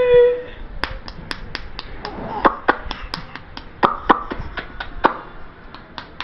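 A small child making a string of sharp mouth clicks, about three or four a second, with a short held voice sound at the start and brief voice sounds among the clicks.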